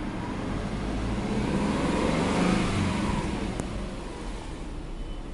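Subaru Impreza 1.5i-L's EL15 1.5-litre flat-four engine blipped once while parked, rising in pitch to a peak about two and a half seconds in and falling back to idle, heard from inside the cabin.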